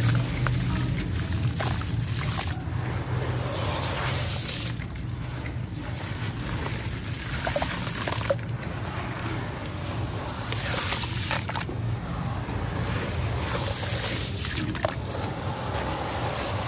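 Hands crumbling gritty sand-cement chunks into a basin of water and swishing through the muddy slurry: continuous sloshing and splashing with scattered small gritty clicks.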